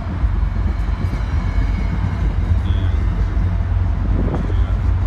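MBTA commuter rail bilevel passenger coaches rolling past along the platform: a steady low rumble.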